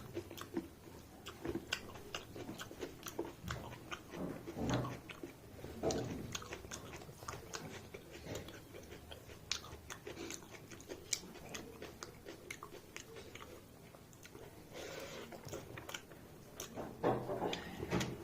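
A person chewing a mouthful of mutton and rice, with many small, wet mouth clicks and smacks.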